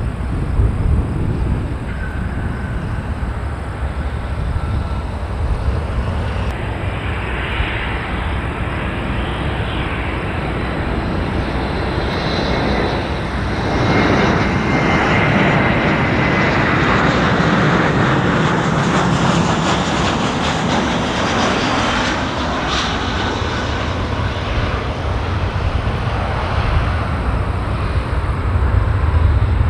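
Jet airliner passing close by. Its engine noise builds to its loudest about halfway through and then fades, with a high whine that drops a little in pitch as it goes by.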